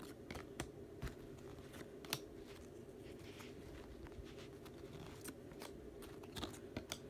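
Trading cards being flipped through by hand: faint, irregular light clicks and rustles of card stock against card stock.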